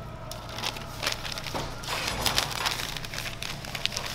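Paper wrapping crinkling and rustling as a rolled lahmacun is wrapped in it, with the crisp flatbread crackling under the hands; a steady low hum runs underneath.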